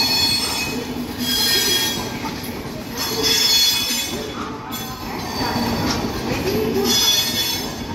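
Indian Railways express coaches running past on the rails. A steady rush of wheel and rail noise swells about every second and a half as each coach goes by, with a high ringing note in each swell.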